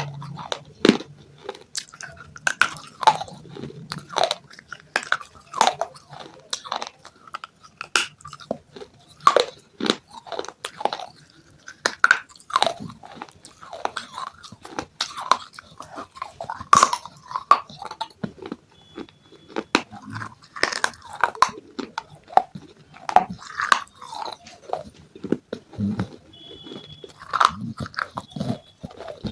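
Close-up crunching and chewing of broken baked-clay pot pieces, a rapid irregular run of sharp crunches as the fragments are bitten and ground between the teeth.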